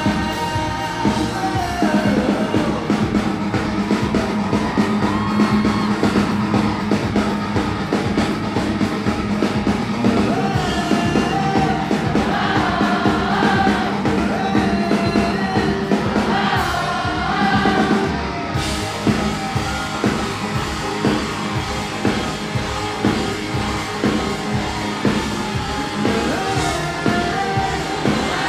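Live rock band playing, with a sung lead vocal over a steady drum beat.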